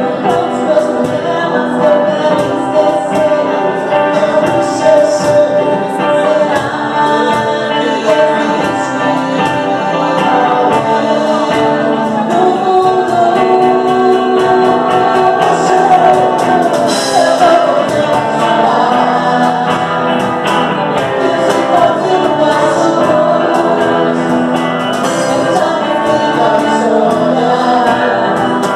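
Live pop-rock band: a woman and a man singing with electric guitar and cajón percussion, through the bar's PA.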